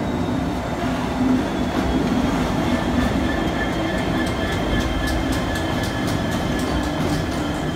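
EWS Class 66 diesel locomotive running light past at close range, its EMD two-stroke V12 engine running steadily. About three seconds in, a thin steady high whine joins it, along with a rapid series of sharp clicks from the wheels on the track.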